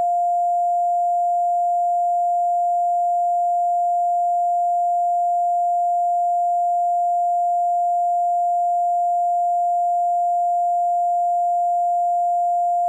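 Loud, steady single-pitch censor bleep, one unbroken mid-pitched tone with no change in pitch or level, masking the caller's name in the 911 call recording.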